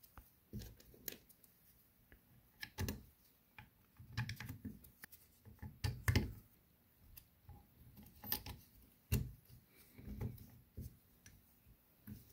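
Irregular clicks, taps and light knocks as the body of a Haldex tractor protection valve (an air brake valve) is pulled apart, handled and set down on a stainless steel workbench.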